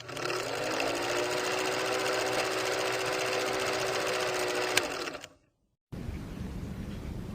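A small machine's motor running with a fast, even mechanical chatter for about five seconds, then cutting off; after a short gap a fainter steady hiss follows.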